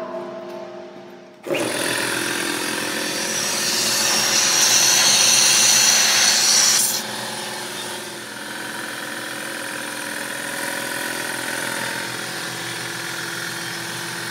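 Electric 60-gallon Quincy air compressor starting up and running steadily to fill the system with its newly added auxiliary tank. A loud hiss of air rides over the motor for a few seconds and stops abruptly about seven seconds in.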